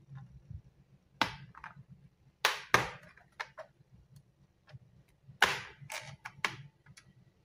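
Plastic retaining clips of an Asus TUF Gaming laptop's bottom cover snapping loose as the cover is pried off with a plastic opening tool: sharp clicks and cracks in three quick clusters.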